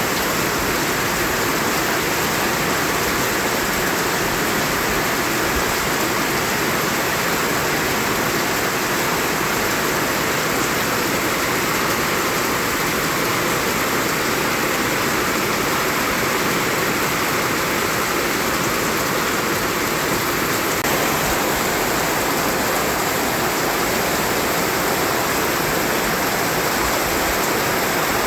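Continuous white noise: a steady, even hiss that holds the same level throughout.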